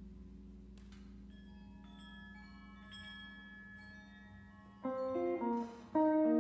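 Contemporary chamber ensemble playing: sparse, high, ringing single notes over a fading low held tone, then louder sustained chords come in about five seconds in and swell near the end.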